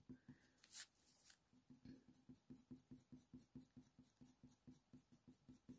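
Faint scratching of a Faber-Castell Polychromos coloured pencil on hot-press watercolour paper, shading with quick, short, even strokes, several a second.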